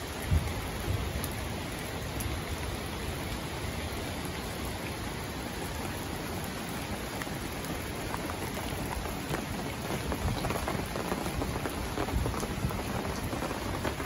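Steady heavy rain falling, an even hiss dotted with the ticks of individual drops, from a downpour that has lasted some 30 hours. A couple of brief low bumps sound right at the start.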